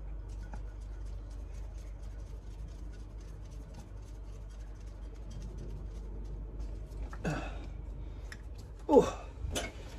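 Faint small metallic clicks and ticks as a clutch pressure plate and its bolts are handled and seated on the flywheel, over a low steady hum. Two short bursts of voice come near the end.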